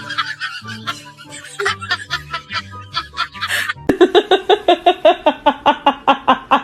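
Background music with a stepping bass line, then about four seconds in a burst of quick, rhythmic laughter, several 'ha' pulses a second.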